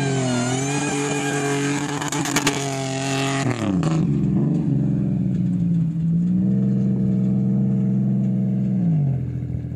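A motor running with a steady pitched whine and a brief crackle a little after two seconds. About a third of the way in it changes abruptly to a lower, steady tone, which steps up in pitch about two-thirds through and drops away near the end.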